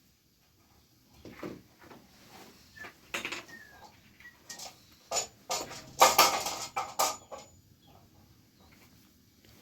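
A series of sharp knocks and clattering, sparse at first and then a dense, loud cluster about six to seven seconds in.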